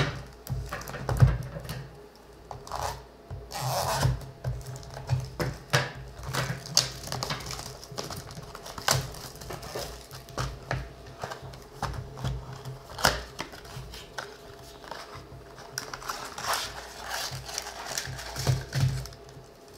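Hands opening a cardboard trading-card blaster box and handling its foil card packs: irregular rustling, scraping and light taps of cardboard and packs against a wooden table.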